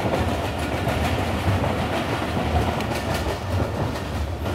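Train running along the track: a steady low rumble of wheels on rails with light clicking.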